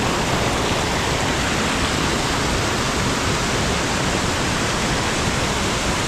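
Loud, steady rush of a waterfall's falling and churning water, an even roar without a break.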